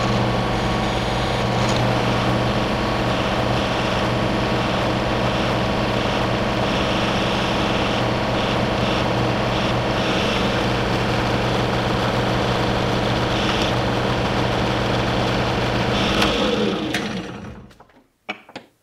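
Drill press running steadily as small holes are drilled in metal; near the end the motor is switched off and spins down with a falling hum, followed by two light clicks.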